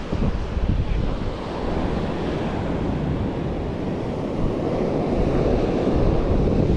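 Ocean surf washing in, swelling louder part way through, with wind buffeting the microphone.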